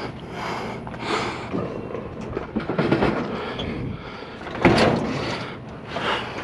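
All-metal dishwasher being heaved onto a utility trailer and shoved into place, scraping and knocking against the trailer and the load. A loud bang comes a little under five seconds in.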